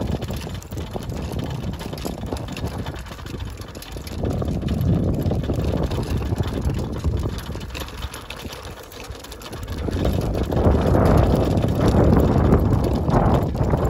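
Wind buffeting the microphone over the low rumble of a dog cart's wheels rolling on an asphalt lane. It rises and falls unevenly and is strongest over the last few seconds.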